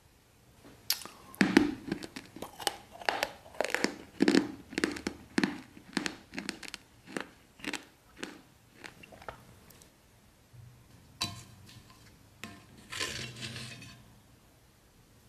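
Close-miked crunchy biting and chewing, a run of sharp crunches about two a second, as if eating a brittle eyeshadow pan. Near the end comes a short crinkling of a foil wrapper.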